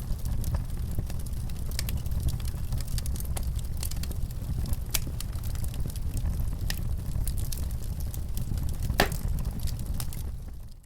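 Wood fire burning in a fireplace: a steady low rumble with frequent sharp crackles and pops, one louder pop about nine seconds in. The sound drops away abruptly at the very end.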